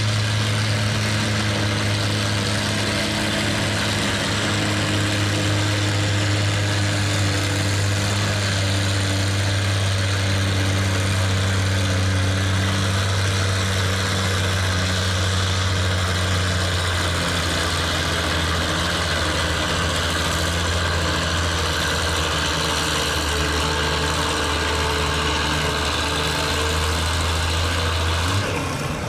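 Farm tractor engine running steadily at a nearly constant pitch, with a slight change in pitch a little after halfway and again near the end.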